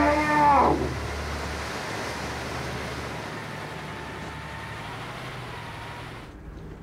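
Road traffic at a queue of lorries: a steady din of truck engines and passing vehicles. It opens with a loud, short pitched sound that slides down in pitch.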